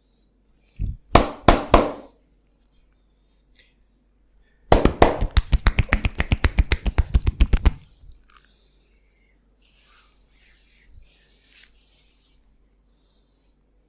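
Barber's hands striking during a percussive massage: three sharp slaps about a second in, then a fast, even run of tapping strokes, about eight a second, lasting about three seconds. Faint rubbing of hands over oiled skin follows.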